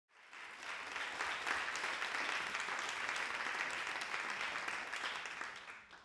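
Audience applauding, building up in the first second and dying away near the end.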